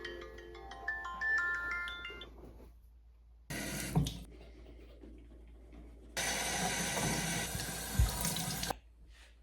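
A phone alarm plays a marimba-like ringtone melody of bright plucked notes, which stops after about two and a half seconds. It is followed by two bursts of steady rushing noise like running water: a short one, then one lasting about two and a half seconds. Each cuts off suddenly.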